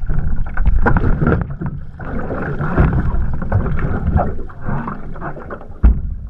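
Choppy sea water splashing and sloshing against an OC1 outrigger canoe hull as a swimmer hauls himself back aboard after a capsize, with wind buffeting the microphone. A sharp thump stands out just before the end.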